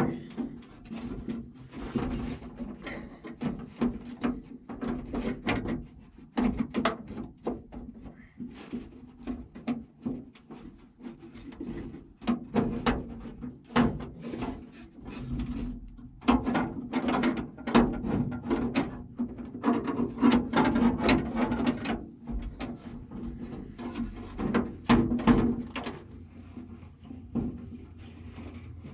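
Irregular clunks, knocks and scrapes of metal parts being handled inside the steel door of an M35A2 army truck, as the door latch assembly is worked loose around the window regulator.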